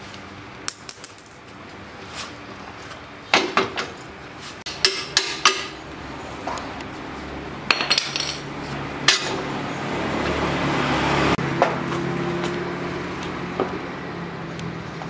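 Steel motorcycle parts and hand tools clinking and clanking in a series of separate knocks, one ringing briefly. A short rushing noise swells just past the middle.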